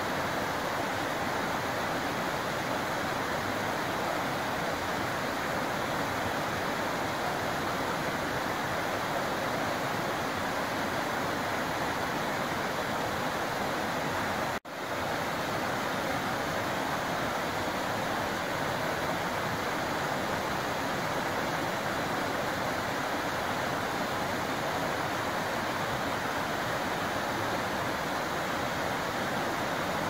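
Rain-swollen forest creek rushing and splashing steadily down a rocky cascade. The sound cuts out for an instant about halfway through.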